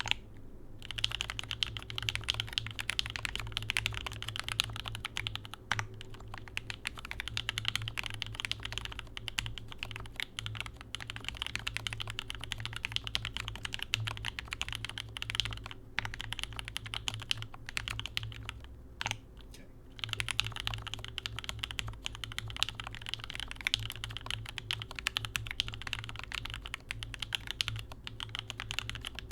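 Fast, continuous typing on a custom mechanical keyboard: a Gerald65 with a gasket-mounted stacked acrylic case, lubed and filmed C3Equalz Tangerine linear switches and GMK keycaps. The stream of keystrokes breaks off briefly twice a little past the middle.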